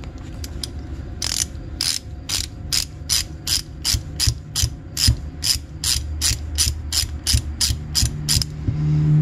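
Hand socket ratchet clicking steadily, about three clicks a second, as it is swung back and forth on a 5/16 fitting. A low steady hum comes up near the end.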